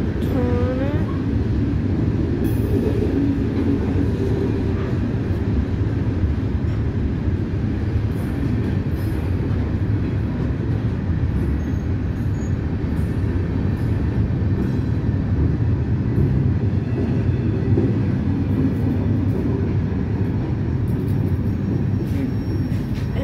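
Freight train of gondola cars rolling past, with a steady rumble of wheels on the rails.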